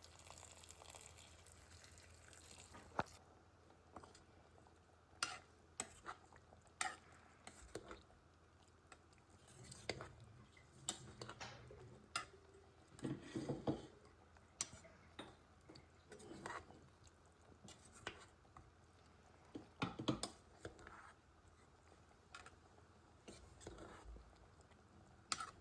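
Faint kitchen sounds: scattered clinks and knocks of a utensil against pots and dishes, with brief bouts of stirring.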